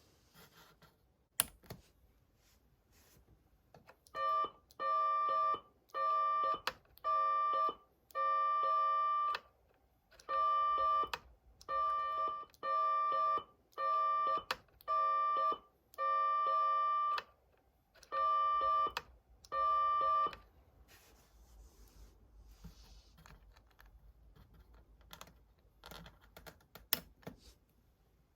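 Patlite siren amplifier's speaker sounding a steady electronic tone in about thirteen separate bursts of irregular length, each under a second to about a second and a half, from about four seconds in to about twenty seconds in. A sharp click comes shortly before the bursts and a few faint clicks after them.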